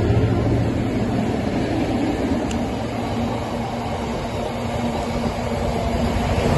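Freight train of empty open box wagons rolling past at close range, a continuous rumble of wheels on rail that dips slightly mid-way and builds again near the end.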